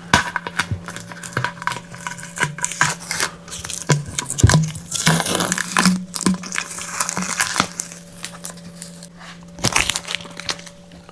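Tape being peeled off the painted surface of a metal water cooler and balled up: a run of irregular crackling rips and crinkles, with a faint steady hum underneath.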